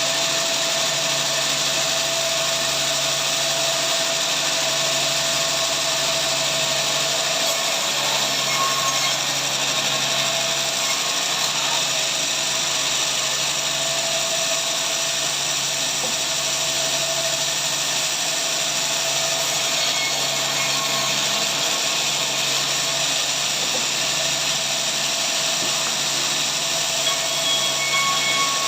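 Sawmill saw running steadily: a continuous, even mechanical noise with a thin steady whine over it that holds unchanged throughout.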